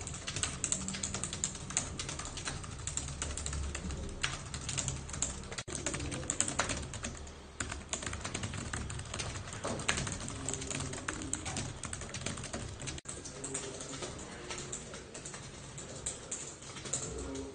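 Fast typing on a computer keyboard: a dense, unbroken stream of key clicks, briefly cut off twice.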